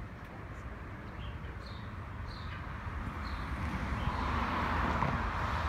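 A few short, high bird chirps over an open-air background hush that grows louder in the second half.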